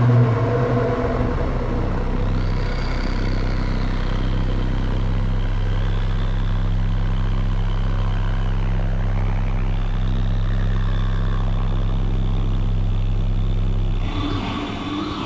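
Soma Labs Lyra-8 analog drone synthesizer playing a low, steady, engine-like drone through added reverb, with fainter high tones sliding slowly above it. About a second before the end the drone drops away and a brighter, different texture takes over.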